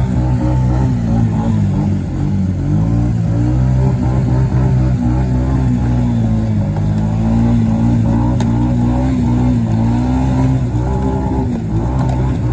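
2015 Honda Rancher 420 ATV's single-cylinder engine revving hard, its pitch rising and falling repeatedly, as the quad sits stuck in a creek with its wheels spinning and churning the water.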